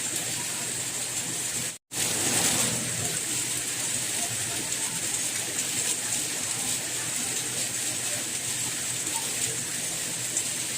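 Steady rain with a hiss high in pitch, cutting out to silence for an instant just under two seconds in, where the looped recording is spliced, then carrying on.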